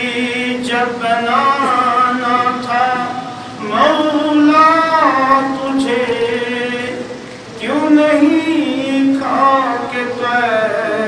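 A man's voice singing a devotional Urdu poem unaccompanied, in long drawn-out melodic phrases: three phrases with short breaks between them.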